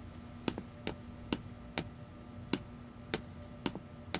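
A series of light, sharp clicks, about two a second and slightly uneven, over a faint steady room hum.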